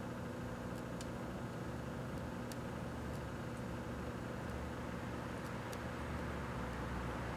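1984 Kenmore microwave oven running: a steady electrical hum with its fan, broken by a few short, sharp ticks.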